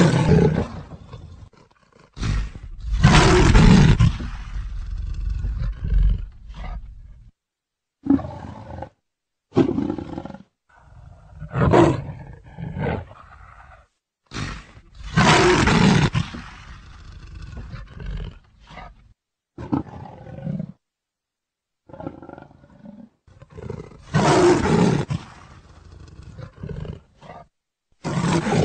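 Leopard calling: a series of loud roars, repeated in bursts every few seconds.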